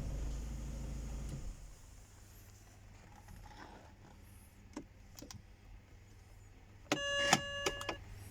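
BMW N46 four-cylinder petrol engine running, then cutting off about a second and a half in. A few light clicks follow, and near the end an electronic chime of several steady tones sounds for about a second.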